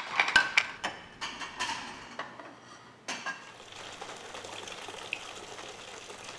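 Cutlery and china plates clinking for about the first two seconds. From about three seconds in, a steady hiss of running water at a kitchen sink where dishes are being washed.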